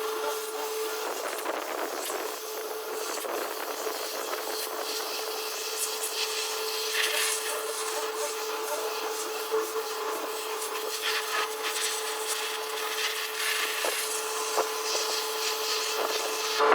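Oily truck intercooler being washed and scrubbed clean: a continuous hiss with a steady hum, under irregular rubbing and scraping strokes.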